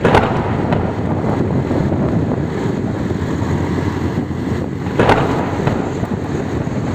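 Wind buffeting the microphone of a phone riding on a moving vehicle at road speed: a steady low rush of wind and road noise, with two harder gusts, one right at the start and one about five seconds in.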